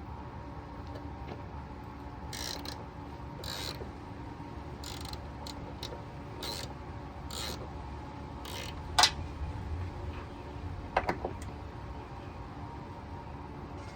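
Hand ratchet wrench working the mounting bolts of a Jeep Gladiator's stock rock sliders: a string of short rasping strokes about one a second, then a few sharp metal clinks. A low steady hum lies under it.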